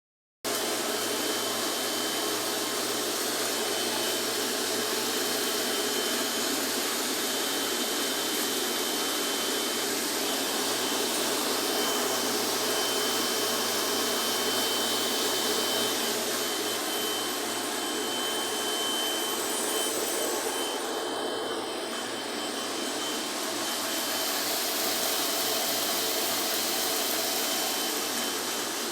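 Straw-forming and cutting machine running: a steady machine hiss with a thin, steady high whine over it.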